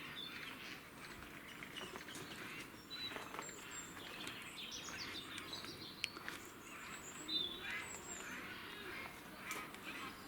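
Several Eurasian jays calling: a steady run of short, harsh, varied calls with a few brief high whistles mixed in.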